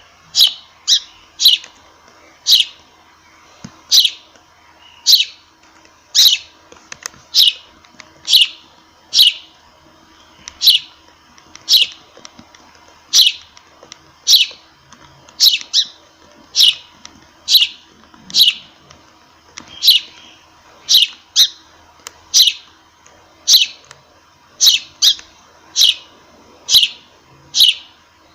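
Sparrow chirping: short, sharp chirps repeated about once a second, sometimes two in quick succession.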